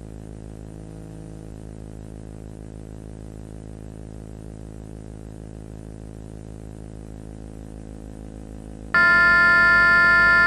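A low, steady electronic drone. About nine seconds in, a much louder blaring tone of several steady pitches cuts in suddenly and holds, like an alarm or siren.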